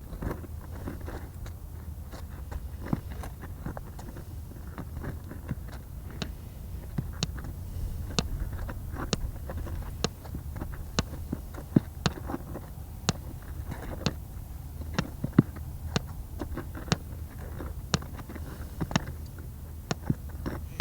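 Steady low rumble with sharp clicks or crunches on top, coming about once a second through the middle stretch.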